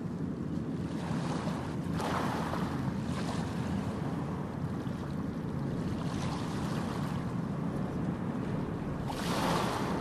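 Ocean waves washing onto a beach: a steady low rush of surf, with a louder wave breaking about two seconds in and another near the end.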